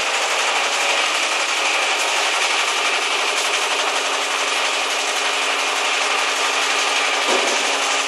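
Industrial machinery running steadily: an even, dense rattling noise with a low hum underneath.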